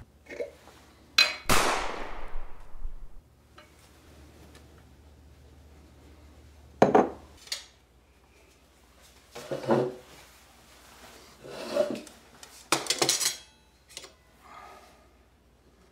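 A single sharp bang with a long fading tail about a second and a half in: a pistol shot. Later, a knife and fork clink and scrape on a plate several times as food is cut.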